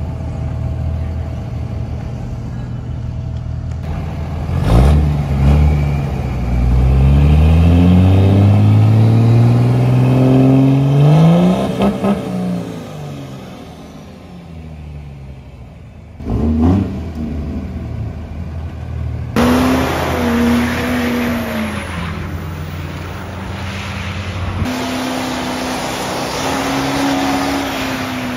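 Diesel pickup truck engines. One idles, then revs up in a long rising sweep as it accelerates away and drops back. After a couple of cuts, a diesel pickup holds its engine at high, steady revs through a smoky burnout.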